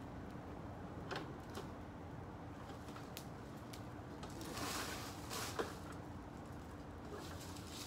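Small wood fire crackling: scattered sharp pops over a steady background hiss, with a brief louder rush of noise about halfway through and a sharp pop just after it.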